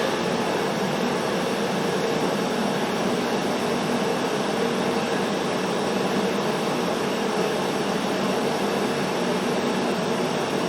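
Twin-burner gas forge running, a steady, even roar from its two small burners firing into the chamber.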